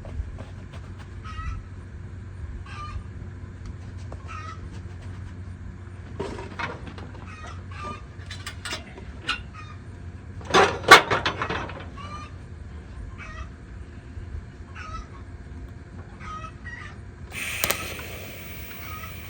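Backyard chickens clucking and calling over and over in short notes. A louder burst comes about eleven seconds in, and a steady hiss starts near the end.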